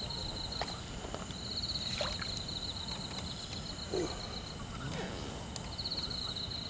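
Night insects chirping: runs of fast, high, pulsing trills that stop and start, over a steady high-pitched insect hiss.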